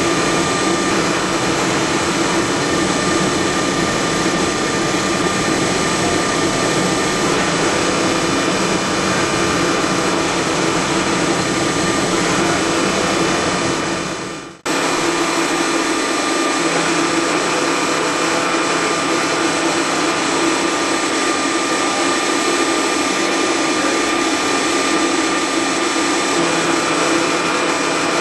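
CNC lathe's live-tooling spindle milling a hexagon part: a loud, steady machining whir with a few constant high tones. It drops out for an instant about halfway through and comes straight back.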